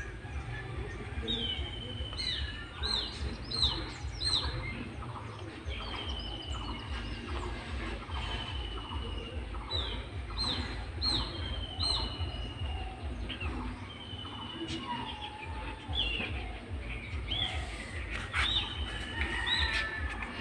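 Small birds chirping repeatedly, with short calls that slide downward in pitch, over a low pulsing rumble.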